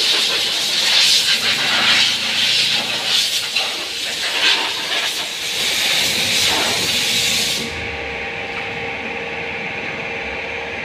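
A high-pressure jet hissing in surges as the freshly washed motorcycle is sprayed down, cutting off suddenly about three-quarters of the way through. A steady machine hum carries on underneath and is left after the jet stops.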